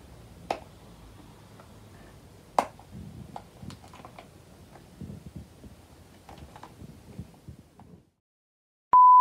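Small clicks and crinkles of a cardboard snack box and its wrapper being handled and picked at by a child trying to open it. The sound cuts out abruptly near the end, and a loud, steady test-card beep starts just before the close.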